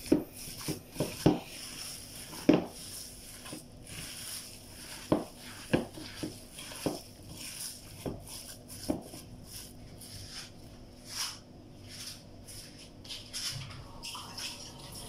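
Gloved hand kneading and pressing a ground-meat embutido mixture in a plastic bowl: irregular soft thuds and squishes, coming most often in the first nine seconds and thinning out after.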